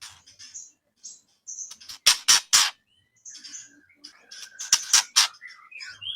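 White-rumped shama (murai batu) song from a masteran training track: softer chirps and short whistled notes, broken twice by a quick run of three loud, harsh strokes, about two seconds in and again near five seconds.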